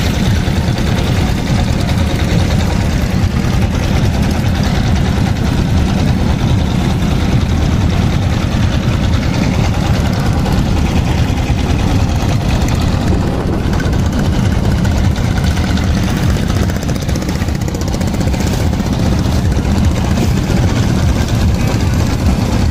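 Motorboat engine running steadily and loudly, at an unchanging speed.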